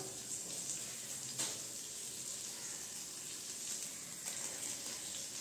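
Faint steady hiss of oil sizzling in a frying pan, with a couple of soft clicks.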